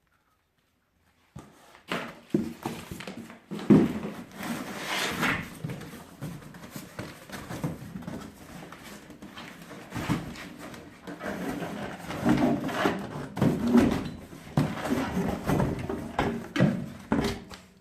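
Handling noises: irregular knocks, clunks and rustling of parts and packaging, starting after about a second and a half of silence.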